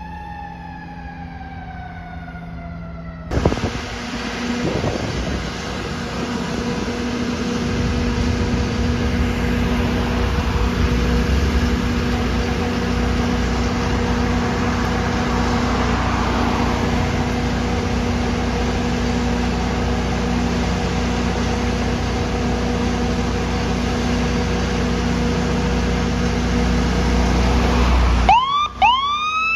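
A fire truck's siren wailing and falling in pitch, cut off abruptly about three seconds in. Then a fire engine's diesel runs steadily with a low rumble and a constant hum. Just before the end a rapid electronic yelp siren starts.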